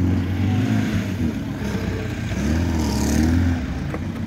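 Off-road 4x4's engine revving up and down as it drives through mud, the pitch rising and falling several times and loudest about three seconds in.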